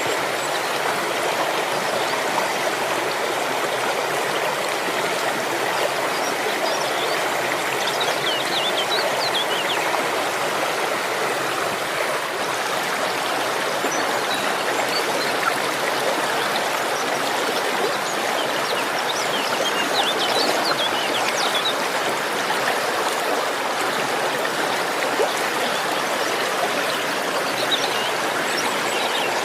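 Steady running water of a stream or small waterfall. A few faint, high bird chirps come through three times: about a third of the way in, about two-thirds in, and near the end.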